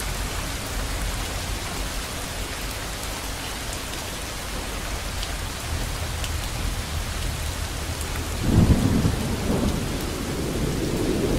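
Steady hiss of rain, with a low rumble of thunder rolling in about eight seconds in.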